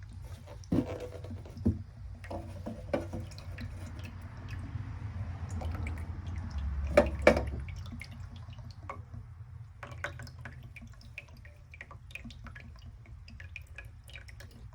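Last water draining and dripping out of an opened faucet supply line, with a few sharp knocks, the loudest two close together about seven seconds in; the flow thins to scattered drips in the later part.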